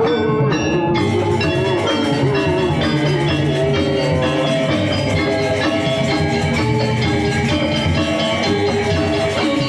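Music played on ringing, mallet-struck metal percussion and drums, steady and continuous, changing about a second in.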